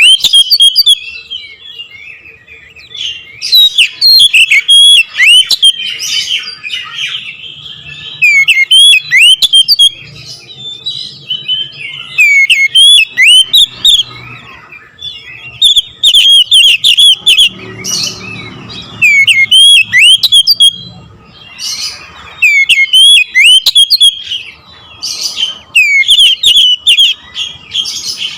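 Oriental magpie-robin (kacer) singing loudly in phrase after phrase of quick, sharp whistled notes that glide up and down, each burst a second or two long with short pauses between: the loud, rolling 'nembak ngerol' song that bird keepers prize.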